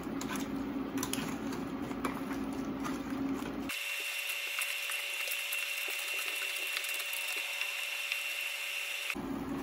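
A spatula stirring crabs, shrimp and mussels in a frying pan: clicking and scraping over a low hum as the seafood cooks. About four seconds in the sound changes abruptly to a hissing crackle with a steady high tone, which stops just before the end.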